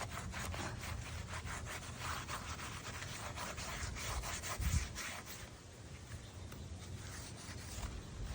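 Repeated rubbing or scraping strokes on a surface, several a second, over a steady low hum; the strokes die down about five and a half seconds in.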